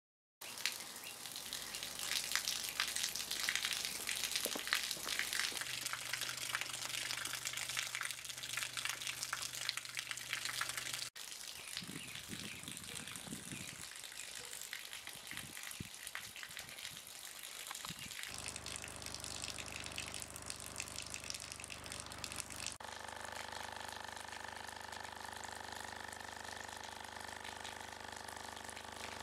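Rushing, gushing water with a fine crackle, broken by abrupt cuts into different-sounding stretches. A steady low hum comes in partway through, and several steady higher tones join it near the end.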